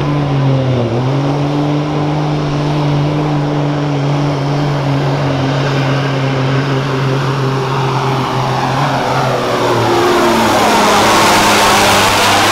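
Mack semi truck's diesel engine running hard under full load while it pulls the sled, its note steady with a brief dip about a second in. About nine seconds in the engine note drops, and the truck passes close by near the end, getting louder.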